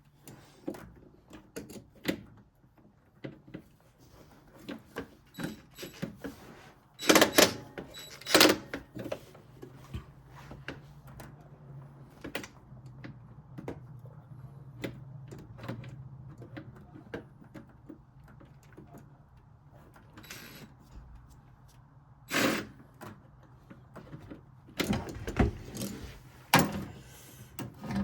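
Scattered clicks, knocks and rattles of hands and tools working on the inside of a washing machine, with a few louder knocks and a faint low hum through the middle stretch.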